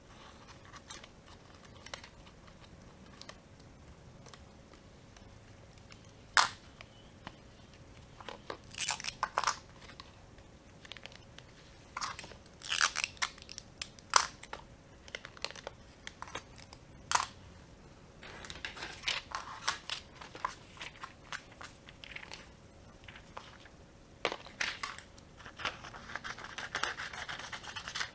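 Scissors snipping white printer paper and paper sheets rustling and crinkling as they are handled, heard as scattered sharp snips and clicks with short stretches of rustling, and clear sticky tape being handled partway through.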